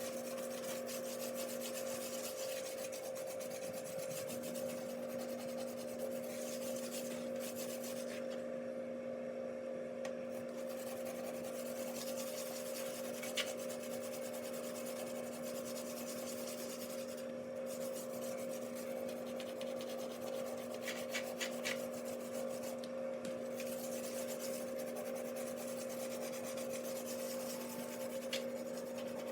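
A dishwasher tablet rubbed back and forth on oven door glass: a steady scratchy scrubbing, over a constant low hum, with a few faint clicks.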